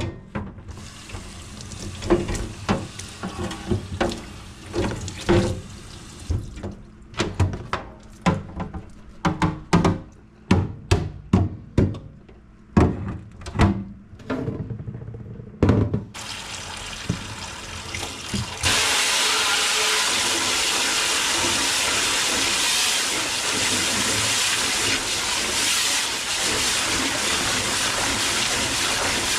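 For about the first half, many separate knocks and clatters of things being handled. Then a sink faucet is turned on, and water runs steadily into the sink, getting louder a couple of seconds later.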